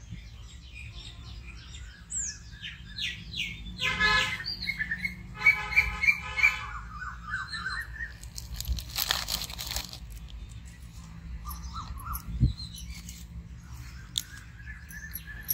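Birds chirping and calling, short scattered calls and rising and falling whistles. Midway through there is a brief rustle, and near the end a single low thump.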